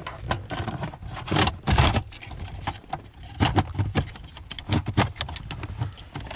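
Plastic relays being handled and pushed into their sockets on a Volkswagen Golf Mk5's central electrics module: a run of irregular plastic clicks and rattles, loudest about a second and a half in.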